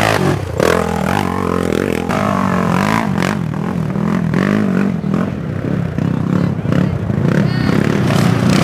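Racing quad (ATV) engine noise, revving up and down, with scattered knocks and clatter.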